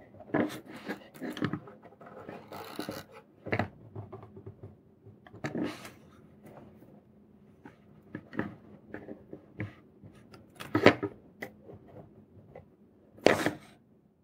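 Handling noise from soldering circuit boards by hand: irregular small clicks, taps and rubs of the boards and soldering iron against a wooden tabletop, with two louder bursts near the end as the iron is set down and the assembled board is lifted.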